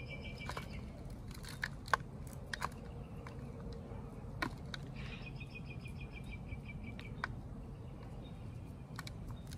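Hardened, compacted potting soil being picked and crumbled by hand off a rootless succulent cutting, giving scattered small dry clicks and crackles. A rapid high chirping trill sounds in the background twice, briefly at the start and for about two seconds midway.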